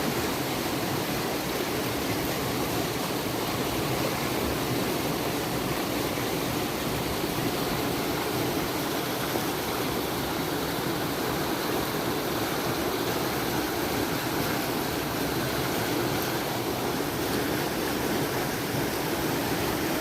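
Fast-flowing water rushing in a steady, unbroken roar of noise.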